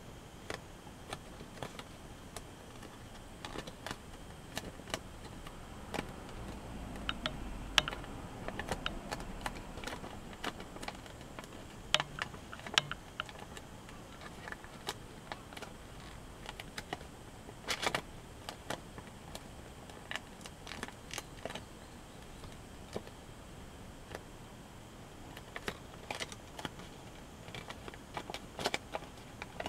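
Origami paper crinkling and rustling as fingers crease and fold it: irregular small clicks and crackles, with a few sharper snaps of the paper.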